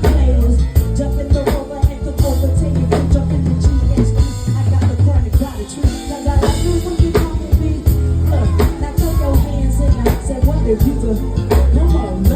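Live band music: a drum kit keeping a steady beat over a bass line, with a singing voice on top.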